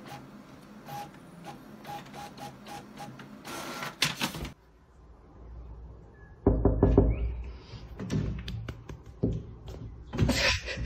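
Home inkjet printer running, with a steady run of short mechanical ticks and clicks, then a louder burst of mechanism noise about four seconds in. In the second half come several louder thuds and knocks.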